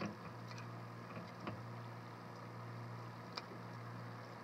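A few faint clicks of metal tongs against a stainless steel pot, over a low steady hum.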